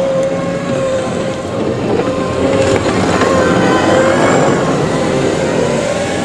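John Deere 333P compact track loader (skid steer) working close by, its diesel engine running with a steady whine over it, growing louder to a peak about four seconds in.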